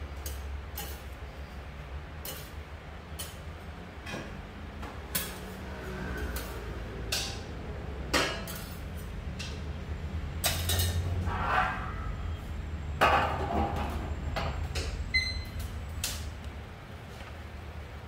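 Metal spatulas tapping, clinking and scraping on a flat-top griddle as soufflé pancakes are turned and lifted. The clicks come irregularly, with a few longer scrapes, over a steady low hum.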